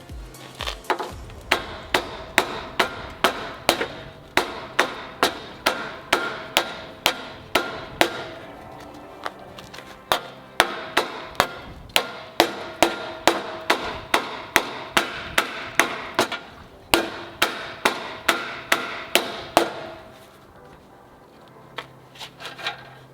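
A hammer striking the steel radiator core support of a 2002 Ford F250 over and over, about two to three ringing blows a second. The run breaks off for a couple of seconds about a third of the way in, pauses again briefly, then stops near the end. The blows are driving the heated, crash-bent support back out toward straight.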